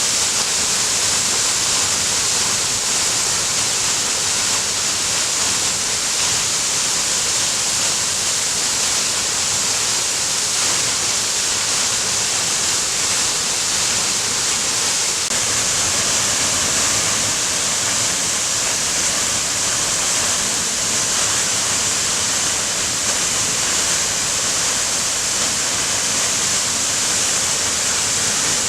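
Mighty waterfall pouring steadily: an even, unbroken rush of falling water.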